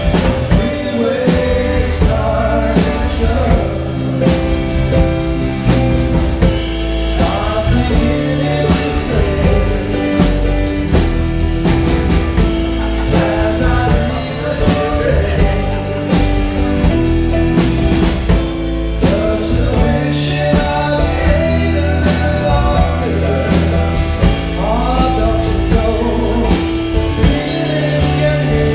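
Live band playing a mid-tempo song with sung vocals over electric keyboard, drum kit and electric and acoustic guitars.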